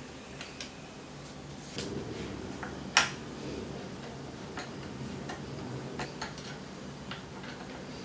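Light metallic clicks and taps as a Shimano STX rear derailleur is fitted to a bicycle frame's hanger and its bolt turned with a hex key, one sharper click about three seconds in the loudest.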